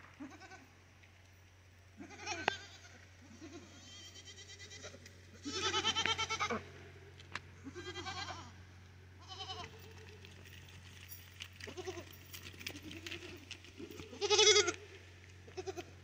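Dairy goats bleating, a string of separate quavering calls one after another, the loudest near the end.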